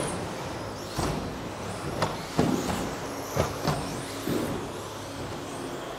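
Electric 1/10-scale RC off-road trucks with modified brushless motors racing: motor whine sweeping up and down in pitch, over a steady running noise. Several sharp knocks and clatters from the trucks hitting the track are spread through it.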